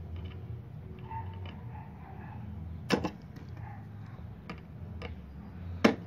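Small metal clicks and two sharp knocks, about 3 s apart, as a homemade sheet-metal bushing is pressed with pliers into the bearing seat of a car radiator fan motor's end cap, over a low steady hum.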